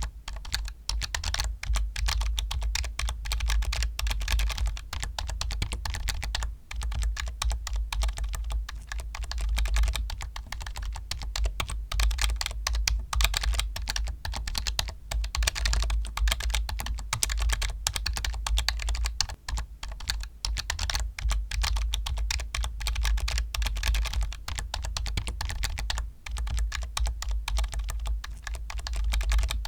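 Continuous fast typing on a computer keyboard: a dense stream of key clicks, broken by a few brief pauses.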